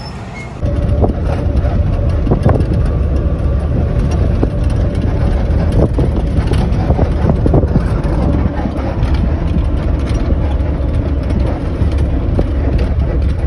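Cabin noise inside a moving road vehicle: a loud, steady low engine and road rumble with scattered rattles and knocks from the body, starting suddenly about half a second in.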